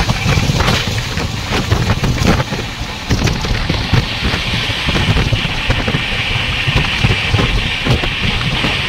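Neelanchal Express passenger train running at speed: a loud, steady rushing rumble of the coach on the rails with short knocks, and wind buffeting the microphone. A hiss grows stronger about halfway through.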